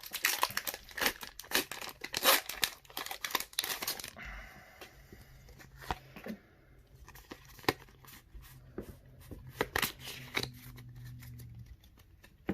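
Foil wrapper of a Pokémon trading-card booster pack torn open and crinkled for about four seconds, then scattered light clicks and rustles as the cards inside are handled.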